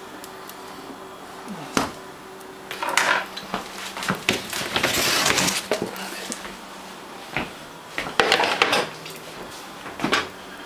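Cookware handled on a gas stovetop: a string of separate knocks, clinks and rattling clatters, the longest lasting about a second near the middle.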